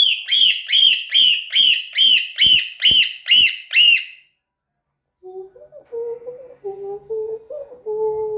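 Parrot giving a rapid series of ten identical high-pitched whistled notes, each bending down in pitch, about two and a half a second. After a short pause it makes lower, voice-like notes that step up and down in pitch.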